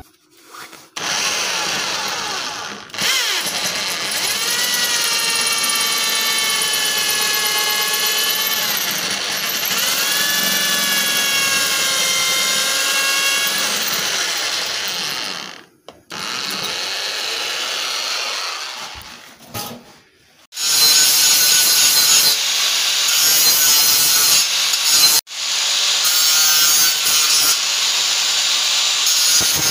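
Electric drill boring into a metal strip, its motor pitch rising and falling as it bites, with a short stop about 15 seconds in. About 20 seconds in it gives way to an angle grinder cutting a metal bar: a louder, harsh, high-pitched grinding.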